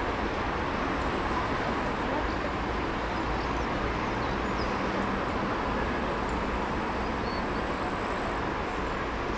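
Steady outdoor background noise, an even hiss and rumble with a few faint high chirps scattered through it.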